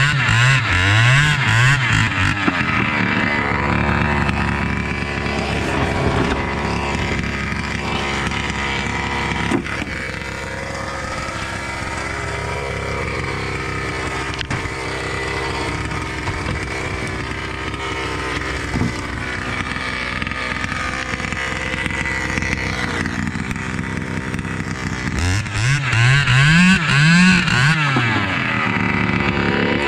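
Two-stroke chainsaw engine with a modified exhaust, revved in quick repeated blips at the start, then running steadily at a lower pitch, and blipped up and down again several times near the end.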